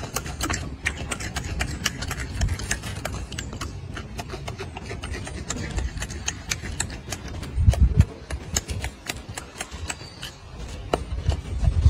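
Orange peel tearing and crackling in a golden snub-nosed monkey's hands: a rapid, irregular run of crisp clicks as it peels the fruit, with a low thump about eight seconds in.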